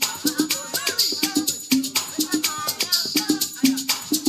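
A live band playing, with a shaker keeping a fast, steady rhythm over a melody and low sustained notes.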